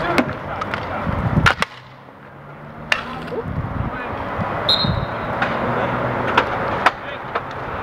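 Inline hockey play: steady rolling of inline skate wheels on the rink floor, broken by several sharp clacks of sticks and puck, the loudest about a second and a half in and again near the end. A short high squeak comes near the middle.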